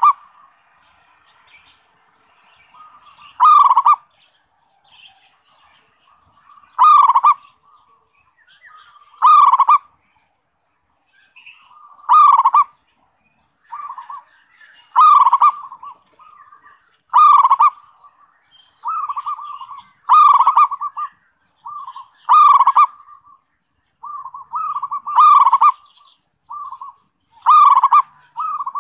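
Zebra dove (perkutut) cooing in its rolling 'kerot' call, a call used to set other perkutut singing. Loud short coo notes come every two to three seconds at first, then more often, with shorter notes between, in the second half.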